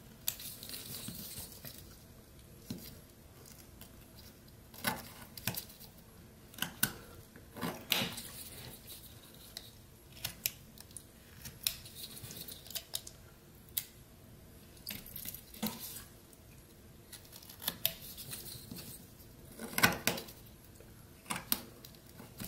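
Rough Rider pocket knife cutting into old pine as a figure is whittled: irregular crisp snicks of the blade biting the wood, with a few short scraping shaves.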